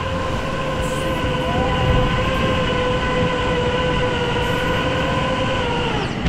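Electric motors and propellers of a 5-inch FPV quadcopter (Rotor Riot Hypetrain 2306 2450kv brushless motors on 4S) heard through its onboard microphone: a steady, loud multi-tone whine over rushing prop wash. The pitch drops just before the end as the throttle comes off.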